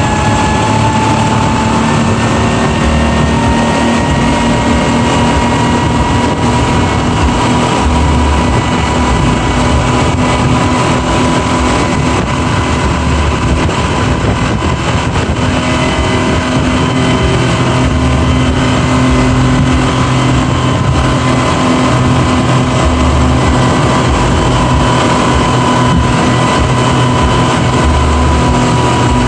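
Twin Honda 250 four-stroke V6 outboard motors running at high speed, a steady engine whine over the rush of water from the wake. The engine note rises slightly in pitch in the first couple of seconds, then holds steady.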